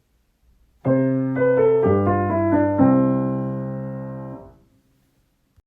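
Piano playing the comedy "chan-chan" punchline sting: a short, loud phrase of chords with quick notes between them, ending on a held chord that is damped off suddenly.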